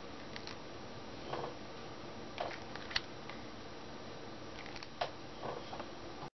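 Fingertips rubbing and pressing paper on a journal page: a few faint, brief rustles and taps over a steady background hiss.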